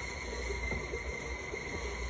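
Stand mixer running steadily as it kneads yeast bread dough, a constant motor hum.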